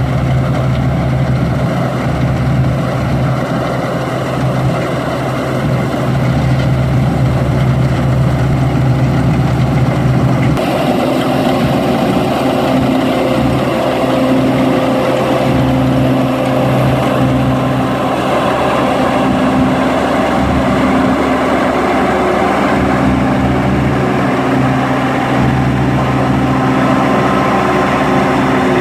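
Engine of a wheat-harvesting machine running steadily, with the machine's tone changing abruptly about ten seconds in.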